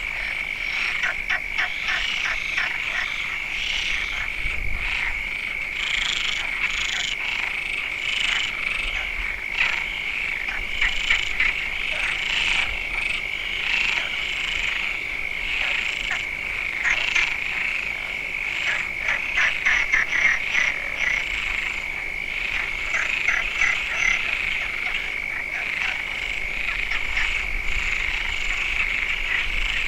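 Frog chorus: many frogs calling at once, rapid trains of croaks layered over a steady high trill.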